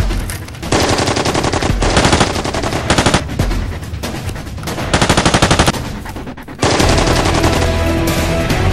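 Three bursts of rapid machine-gun fire, at roughly fifteen shots a second, in the first six seconds: a gunfire sound effect dubbed over a Nerf battle. Background music with a heavy bass comes in loudly about seven seconds in.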